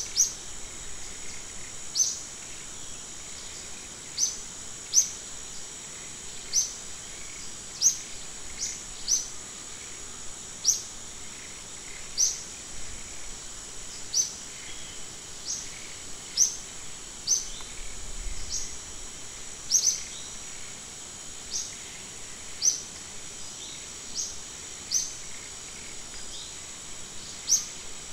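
A bird repeats a short falling call note every one to two seconds, over a steady high-pitched drone of insects.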